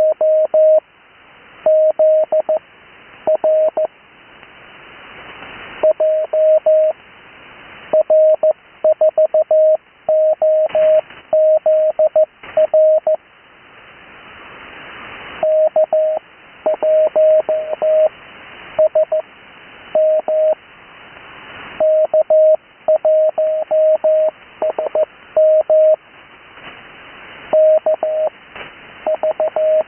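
Morse code (CW) sent as a steady mid-pitched keyed tone, in groups of dits and dahs spelling out amateur radio call signs, heard over a radio receiver. Hiss swells in the pauses between groups.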